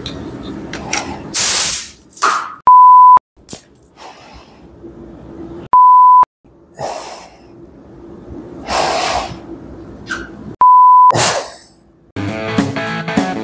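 Three short, loud censor bleeps, each a steady half-second beep, between bursts of compressed-air hiss from a paint spray gun. Music with guitar and drums comes in near the end.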